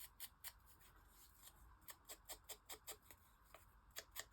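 Small scissors snipping paper in a run of faint, short cuts, a few a second, coming faster near the end.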